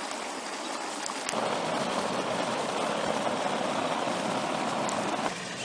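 Water running from a garden hose as the AquaDam is filled: a steady rushing hiss that grows louder about a second in and drops back shortly before the end.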